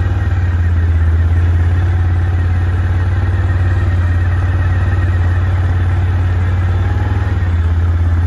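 Can-Am ATV engine running with a steady, low drone as it drives across the freshly bladed plot.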